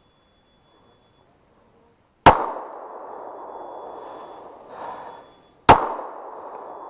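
Two pistol shots, about three and a half seconds apart, each followed by a long ringing tail.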